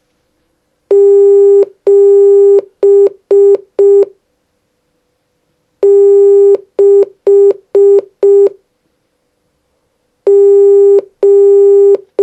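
Morse code sent as a single steady electronic tone, keyed in long dashes and short dots: two five-element groups spelling the digits 7 (dash dash dot dot dot) and 6 (dash dot dot dot dot), with a third group of dashes starting near the end.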